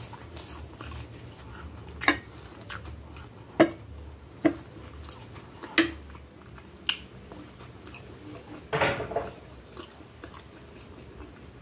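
Close-miked eating mouth sounds: a handful of sharp, separate smacks and clicks of lips and tongue while chewing, then a longer gulping sound about nine seconds in as she drinks from a glass.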